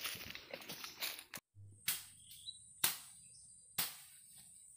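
Footsteps crunching through dry leaf litter, then after a cut a steady high insect buzz in the forest, broken by three sharp knocks about a second apart.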